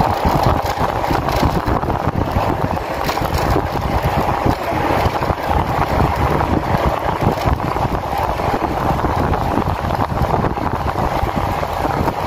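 Steady rush of wind over the microphone of a handlebar-mounted phone on a road bike riding at speed.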